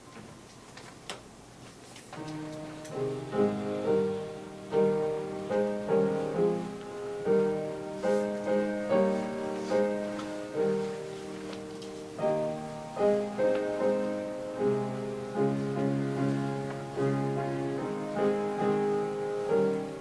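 A piano comes in about two seconds in and plays slow, sustained chords as accompaniment for silent prayer.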